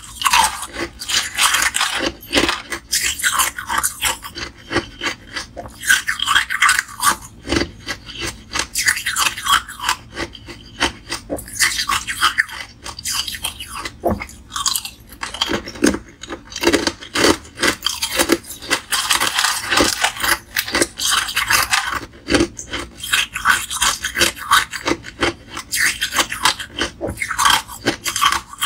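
Close-miked crunching and chewing of small pieces of ice, with irregular crackles as the ice cracks and breaks between the teeth, bite after bite with only short pauses.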